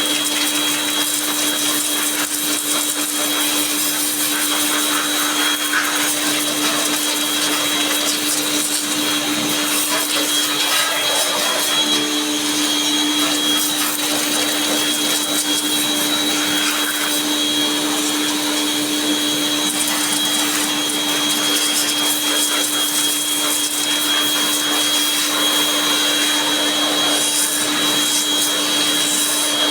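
An electric motor of the vacuum-cleaner kind running steadily, with a constant whine over a rushing-air hiss and no change in speed.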